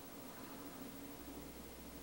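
Faint steady hiss of an old recording's background noise, with a low hum that grows stronger just over a second in; no other sound.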